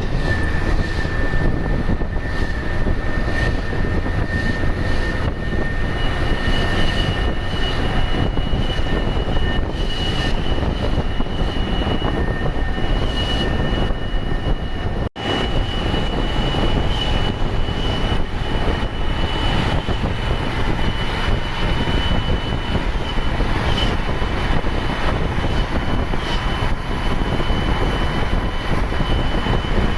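Ashok Leyland BS-3 turbo-intercooled bus diesel engine pulling on a mountain climb, with a steady high turbo whistle over the engine noise. The whistle moves to a higher pitch partway through, and the sound drops out for an instant about halfway.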